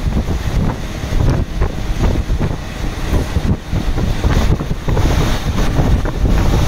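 Wind buffeting the microphone over the low rumble of a moving train, heard from aboard the train while a freight train passes on the next track.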